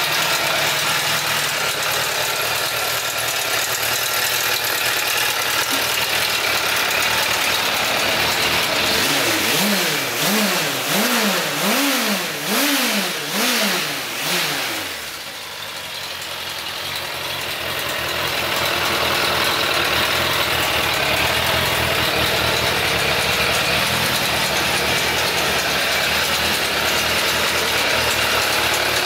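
Suzuki Bandit 600's air/oil-cooled inline-four engine idling, blipped up and down about half a dozen times in quick succession partway through, then settling back to idle.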